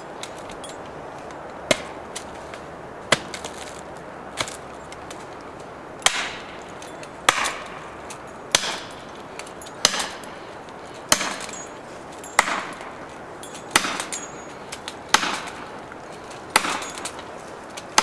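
Felling wedge being driven into the back cut of a large tree with hammer blows: a few lighter strikes, then heavier ones with a short ring about every second and a quarter from about six seconds in, tipping the tree toward its fall.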